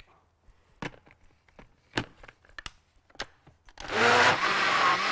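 A few light knocks and clicks as the blender jug and lid are handled, then about four seconds in a countertop blender starts and runs loud and steady, blending cheesecake batter.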